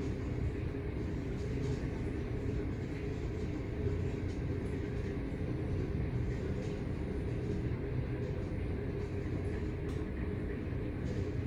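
Glass-walled passenger lift descending: a steady hum and rumble of the car running down its shaft.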